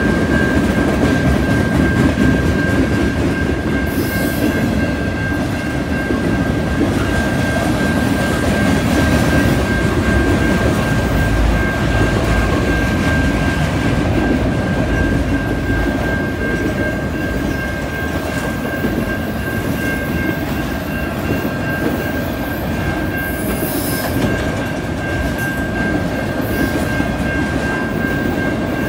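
Freight train's boxcars and autorack cars rolling past, a steady, loud noise of wheels on rail with a thin steady high squeal over it.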